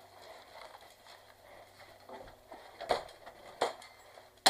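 Airsoft gunfire: three sharp snaps, the first about three seconds in, then roughly one every second, over a faint hiss.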